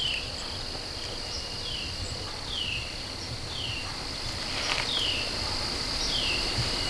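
Steady high insect trill, with a short falling chirp repeating about once a second.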